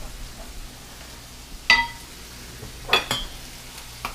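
Kitchen utensils and cookware clinking together: two sharp metal clinks with a short ring, a little over a second apart, the second followed by a lighter tick.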